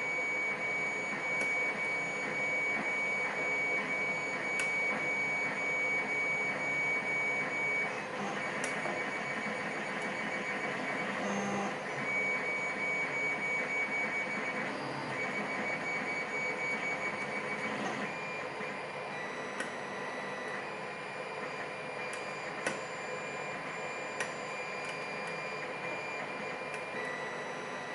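Picking a pin-tumbler lock: a few light metal clicks from the pick and tension wrench. Under them runs a steady machine whine whose tones shift every few seconds, and it is louder than the clicks.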